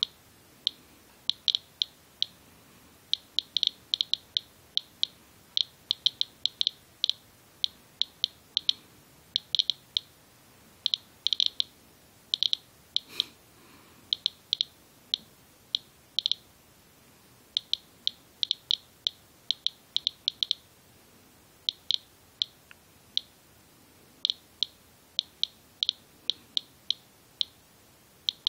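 Inspector USB Geiger counter chirping once for each detected count: short, high-pitched ticks at random, irregular intervals, about three a second and sometimes bunched together. The rate, around 180 counts per minute, is several times the 40-count background the owner normally gets, measured on the hood of a winter coat that he suspects of Fukushima fallout.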